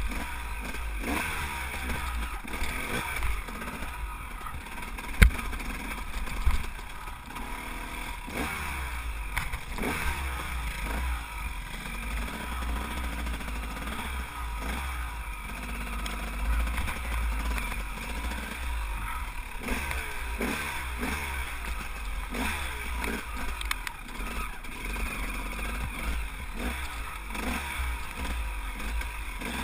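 Dirt bike engine revving up and down over and over as the bike climbs over rocks and mud, under a heavy low wind rumble. Sharp knocks of the bike striking rocks, the loudest about five seconds in and another about a second later.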